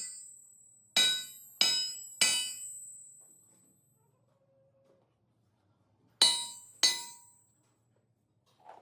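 Metal being struck with a hammer: three ringing blows about half a second apart, then a pause of a few seconds, then two more.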